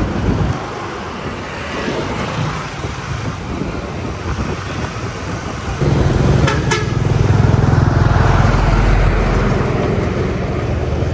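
Motorbike engines and road traffic running steadily. A louder, deeper engine rumble comes in about six seconds in and lasts around four seconds.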